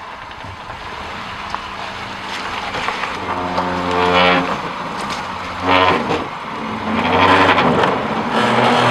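Subaru Forester's brakes groaning as it creeps down a steep rock slab, in several drawn-out, pitched groans that grow louder after a few seconds, over the low run of the engine.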